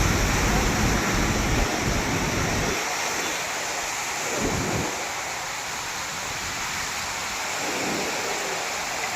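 Floodwater rushing over a small bridge: a steady, even rush of water. Wind buffets the microphone with a low rumble for the first few seconds and in brief gusts later.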